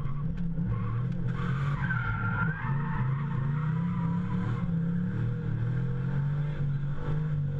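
Toyota Supra drift car's engine, heard from inside the cabin, revving up and down as it holds a drift, with tyres squealing, most strongly about two seconds in.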